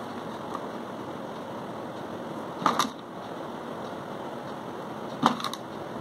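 Small LED bulbs clicking and clattering briefly in a plastic container, twice: about two and a half seconds in and again near the end, over a steady background hiss.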